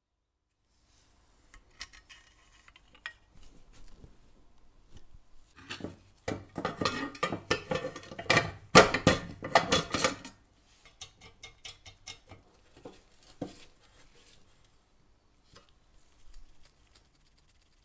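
Metal pieces clattering, clinking and scraping against each other in a quick, irregular series of knocks, densest and loudest from about six to ten seconds in.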